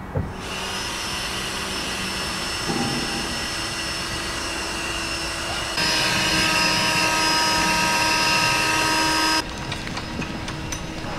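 Steady engine drone with several held tones. It grows louder about six seconds in and drops back suddenly about nine seconds in.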